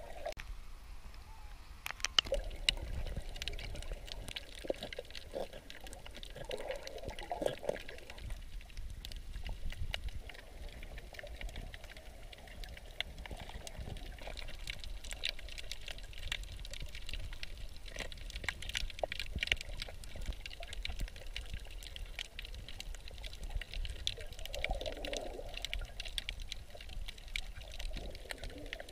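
Water heard through a submerged camera: a steady sloshing, bubbling hiss with scattered sharp clicks and crackles and a few short swells of water noise.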